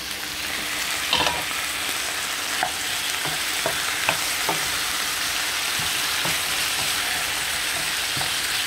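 Chicken wings sizzling in a hot frying pan with sautéed onion, garlic and ginger, a steady frying hiss that builds over the first second as the chicken goes in. A few short, light clicks are scattered through it.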